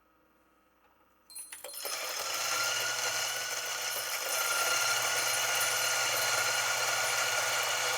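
Turin DF83V Gen 3 flat-burr espresso grinder switched on a little over a second in, then running steadily as it grinds a single dose of coffee beans, hot-started with the burrs already turning.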